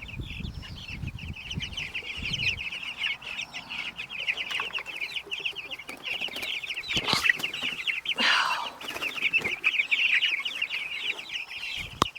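A flock of chickens clucking and calling steadily in rapid short notes, with one louder call about eight seconds in. A low rumble runs under the first couple of seconds.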